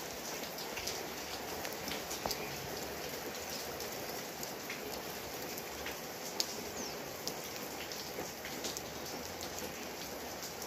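Steady rain falling on garden foliage and ground, with scattered sharp ticks of single drops.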